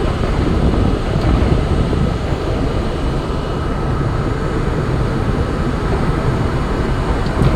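R32 subway train running steadily, heard from the front of the car: a loud, even rumble of wheels on rail and traction motors, with a faint high steady whine and a couple of small ticks.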